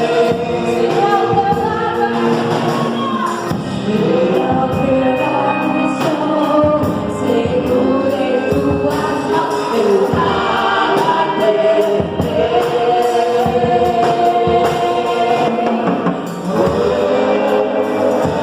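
Gospel worship music: a band with a choir of voices singing together over steady percussion.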